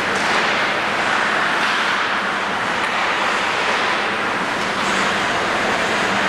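Steady, even rushing background noise in an ice rink, with no rhythm and only a few faint high ticks.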